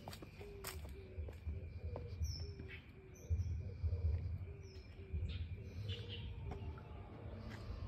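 Faint outdoor birdsong: scattered short high chirps over a run of short, low repeated calls, with a low rumble on the microphone.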